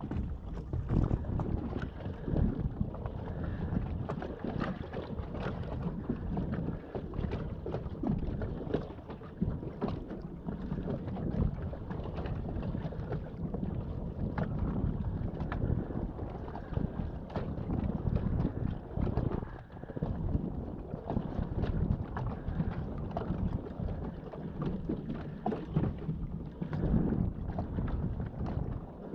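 Wind buffeting the microphone on a fishing kayak under way: a steady low rumble with frequent short crackles, holding about the same level throughout.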